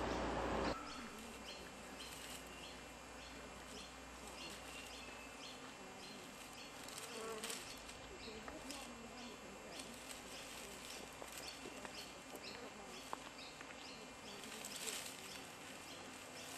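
Faint bush ambience with flies buzzing and scattered soft short ticks and clicks. Background music cuts off under a second in.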